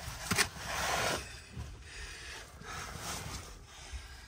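Scuffing and rubbing of a person moving about among rocks, with a sharp knock about half a second in and a louder scrape just after it.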